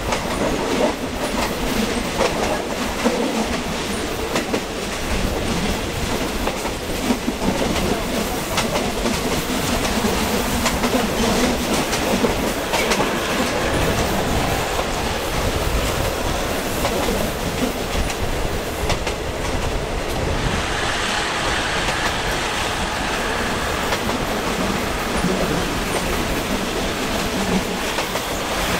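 Passenger train running, heard from aboard a carriage: a steady rolling rumble with wheels clacking over the rail joints. The sound turns brighter about two-thirds of the way through.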